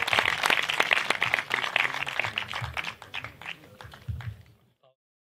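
Audience applauding, the clapping thinning to scattered claps and then cutting off near the end.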